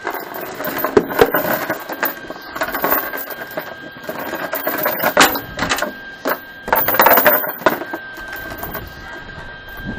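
Steel chain being lifted and laid out on a plywood board, its links clinking and rattling against each other in irregular bursts, loudest about a second in and again around five and seven seconds.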